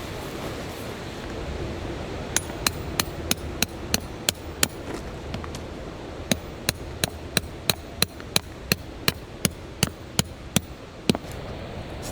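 A hammer striking metal with sharp, ringing blows, about three a second, as tent stakes are driven into the ground. There are two runs of strikes, a short one and then a longer one, with a brief pause between them.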